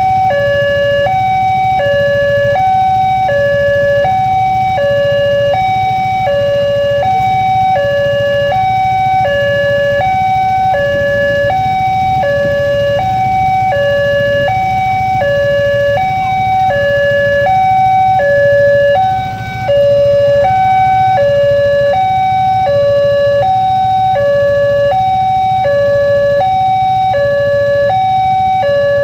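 Railway level-crossing warning alarm sounding steadily: an electronic signal that alternates between a higher and a lower tone, changing about every three-quarters of a second. It is the sign that the barriers are down for an approaching train.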